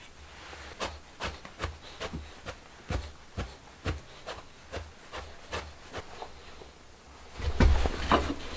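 Rhythmic scraping strokes on wood, about two or three a second, then a louder, busier clatter near the end.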